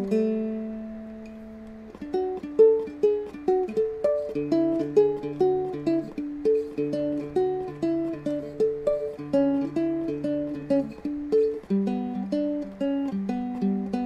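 A Seagull Merlin dulcimer played as a slow melody of single plucked notes. A chord rings and fades for about two seconds at the start before the note-by-note picking resumes, with lower notes sounding under the tune through the middle.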